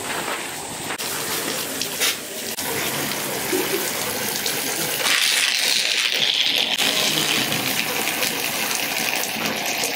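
Water pouring onto a paper fortune laid on a bamboo mat, a steady hiss that is loudest from about five to seven seconds in.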